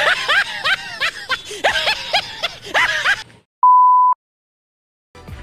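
A run of short, high, squeaky vocal calls breaks off. After a moment of silence comes a loud, steady 1 kHz test-tone beep lasting about half a second, the tone that goes with TV colour bars, and then silence again.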